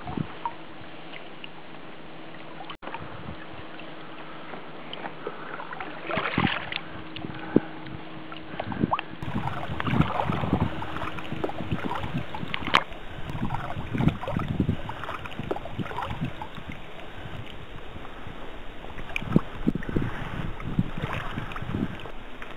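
Kayak paddle blades dipping into calm water at an irregular pace, with splashing and water dripping off the blades.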